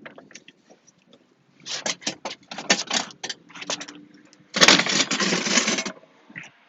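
Hard plastic clicking and rattling as the car's HVAC box is flipped over and handled, then a loud scraping rush lasting about a second and a half, starting a little past the middle.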